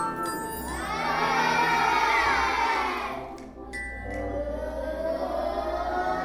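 A group of children's voices imitating a sound effect, many pitches swooping up together, holding, and falling away, then slowly rising again like a siren.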